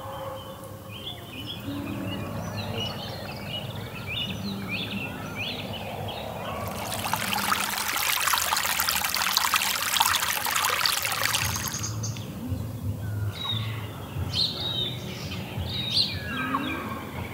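Small birds chirping and singing. In the middle, for about five seconds, a shallow stream runs loudly over rocks, and the birdsong picks up again after it.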